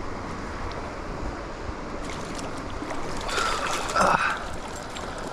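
Steady rush of flowing river water, with a short burst of louder splashing and scuffing about three to four seconds in.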